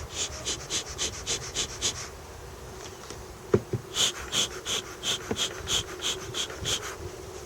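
Honeybees humming steadily around the hives. Two runs of quick, evenly paced high chirps, about three a second, sound over the hum, and a couple of light knocks fall in the middle.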